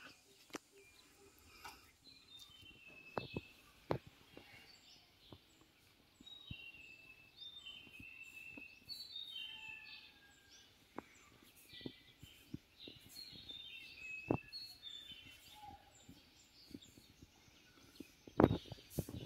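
A songbird calling in short runs of quick high notes that step downward, repeated many times, with faint scattered clicks and a couple of louder knocks near the end.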